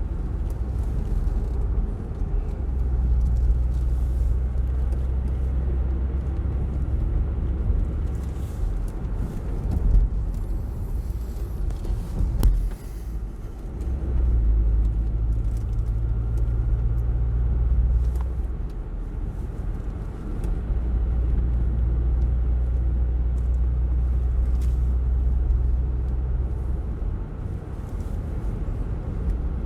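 Car engine and road noise heard from inside the cabin while driving a winding mountain road: a low drone rises into steady stretches and drops away again as the car speeds up and slows down, with an occasional knock.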